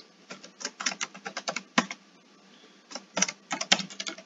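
Computer keyboard keystrokes as a password is typed: quick runs of clicking keys, with a pause of about a second midway.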